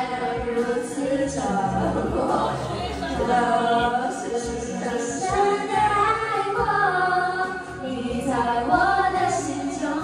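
A song with singing over musical accompaniment, the voice holding long, wavering notes throughout.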